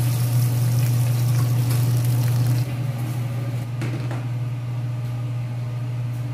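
Hot cooking oil sizzling in a frying pan over a steady low hum. About two and a half seconds in the sizzle cuts off and the hum carries on quieter, with a couple of light knocks as a plate is set down on a table.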